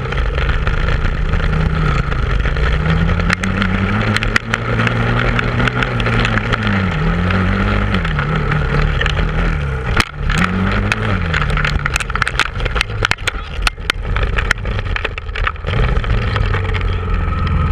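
ATV engine heard from on board, revving up and easing off several times as the quad is ridden over rough dirt and sand, briefly dropping about ten seconds in before picking up again. Frequent knocks and rattles from the bumpy ground come through in the second half.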